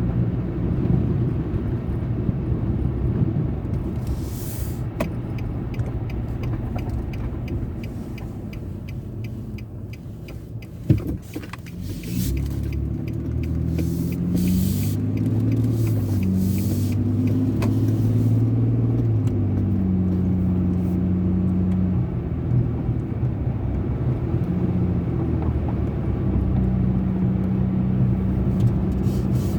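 Car road noise heard from inside with the windows partly down: engine and tyres running. The level dips as the car slows, then comes a sharp knock about 11 seconds in. After that the engine pitch climbs in steps as the car pulls away and shifts up, then settles into a steady cruise.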